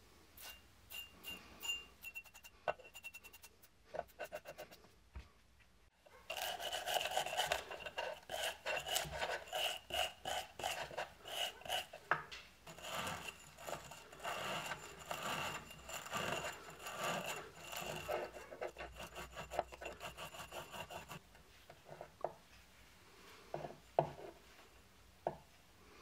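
A trigger spray bottle squirting several times in quick succession, then the inside of an aluminium coffee-maker pot being scrubbed hard for about fifteen seconds, a dense rubbing and scraping with a faint metallic ring. A few light knocks follow as the scrubbing stops.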